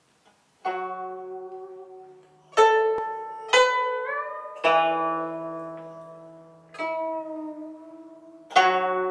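Guzheng (Chinese plucked zither) played solo. About two-thirds of a second in it begins a slow phrase of about six widely spaced plucked notes, each left to ring and fade, with one note bent upward in pitch as it sounds.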